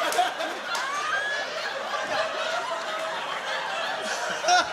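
Live theatre audience laughing, many people chuckling at once, with one louder voice briefly near the end.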